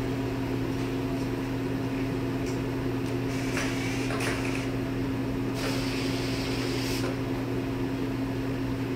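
Steady electrical hum of a powered-up CNC vertical milling machine while its table is jogged from the handwheel pendant, with two brief hissing noises around the middle.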